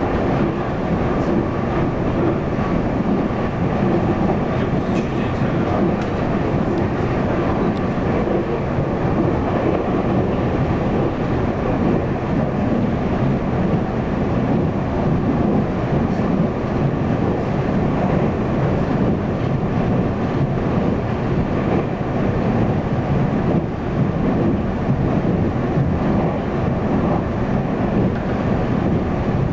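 Running sound of a Taiwan Railways local commuter electric multiple unit, heard from inside the passenger car: a steady rumble of wheels on the track, with no marked changes.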